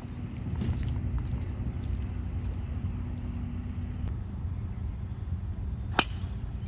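A golf club striking the ball on a tee shot: one sharp crack near the end, over a steady low outdoor rumble.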